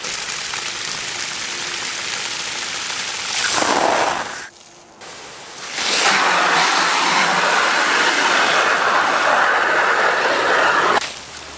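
A high-pressure jet of water rushing from a nozzle on the end of a microhydro penstock and splashing onto the ground. It breaks off briefly a little after four seconds, comes back louder, and cuts off suddenly near the end as the valve is shut quickly, the fast shut-off that causes water hammer in the pipe.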